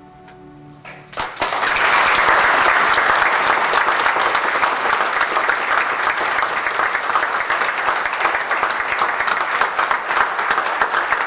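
The last held notes of the song end about a second in, and an audience breaks into loud applause, many hands clapping densely and steadily.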